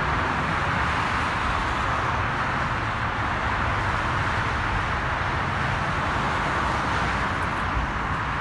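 Steady freeway traffic noise: an even hiss of car tyres on the roadway with a low rumble underneath.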